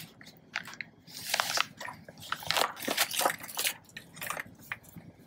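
Paper instruction sheet rustling and crackling in irregular bursts as it is handled.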